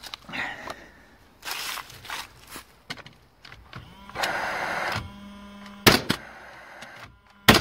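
Hitachi NR90GC2 gas framing nailer being test-fired into timber after a repair. Its fan whirs with a low hum, then two sharp shots come about a second and a half apart, the second the loudest. The nailer fires, so the repair has worked.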